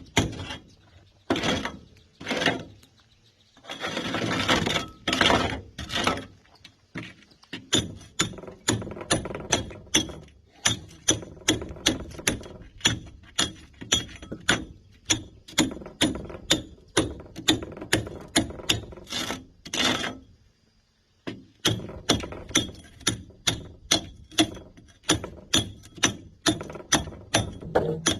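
Hammer striking a chisel to chip concrete, steady blows at about two a second with a short pause about twenty seconds in. A few longer, rougher sounds come about four to six seconds in.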